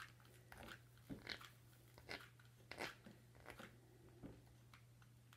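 Faint, irregular crunching and crackling of dry, fuzzy craft pieces being handled and pressed into place, over a low steady hum.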